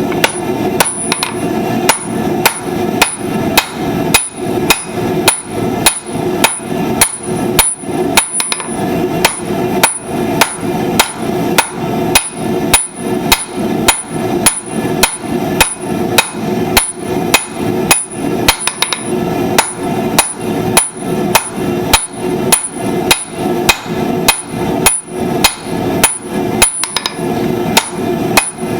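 Blacksmith's hammer striking hot steel on an anvil in a steady rhythm, about two to three blows a second, each blow ringing briefly, over a steady low hum.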